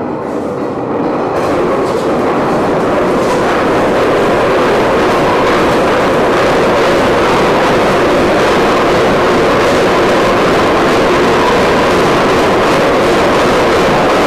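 An aircraft carrier's anchor chain running out as the anchor is let go, a loud continuous noise that builds over the first couple of seconds and then holds steady.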